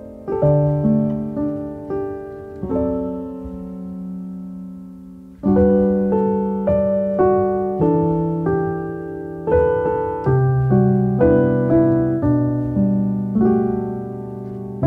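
Background piano music: single notes and chords that strike and fade, with one chord held and dying away for a couple of seconds before the playing picks up again about five seconds in.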